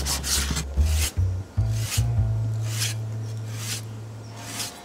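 A cleaver slicing thin pieces from a raw fish fillet on a wooden chopping board: several separate rasping strokes of the blade through the flesh and against the wood. Soft background music with low bass notes plays underneath.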